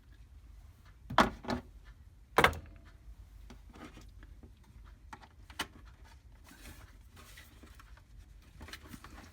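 A few sharp knocks and clicks of a 12-volt transformer and its leads being handled and set down on a hard surface, the loudest about two seconds in, then lighter clicks.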